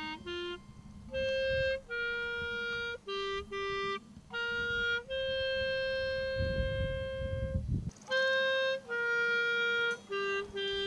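A slow solo tune on a single wind instrument, long held notes stepping up and down. A low rumble runs underneath and stops about eight seconds in.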